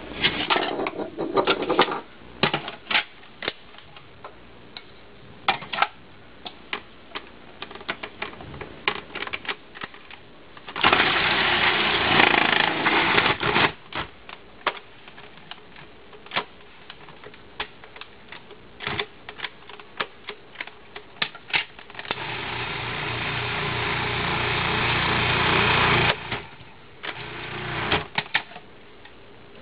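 Cuisinart food processor grating chunks of cheese, run twice: once for about three seconds, and again about halfway through for around four seconds, getting louder as it runs. Scattered clicks and knocks of the bowl, lid and cheese being handled come before and between the runs.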